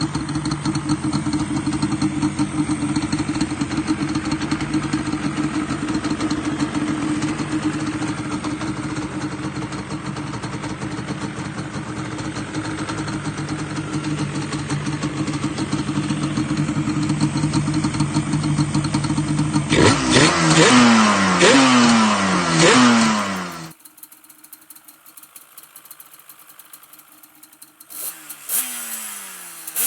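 Yamaha Banshee's 350 cc twin-cylinder two-stroke engine running steadily for about twenty seconds. It is then revved up and down several times in quick succession before the sound cuts off abruptly. A quieter stretch follows, with another brief rev near the end.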